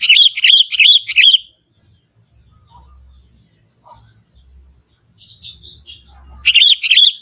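Young wild sooty-headed bulbul singing: a loud, quick bubbling phrase of about four warbled notes at the start, and another like it near the end, with faint chirps in between.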